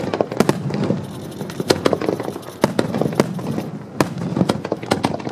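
Aerial fireworks bursting in an uneven series of about a dozen sharp bangs and cracks.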